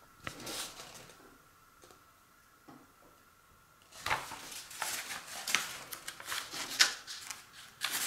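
Large paper instruction sheets rustling and crinkling as they are folded and turned over, starting about four seconds in after a quiet stretch.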